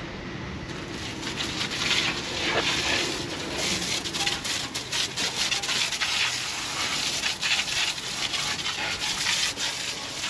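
Water jet from a hose spraying and spattering against the steam locomotive's underside and ash pan as it is rinsed of corrosive ash. It is a continuous hiss that wavers as the spray moves about.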